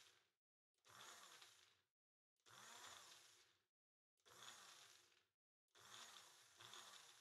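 Magic Bullet blender motor being pulsed on and off while chopping pesto ingredients: about five short whirs, each spinning up and winding down, very faint.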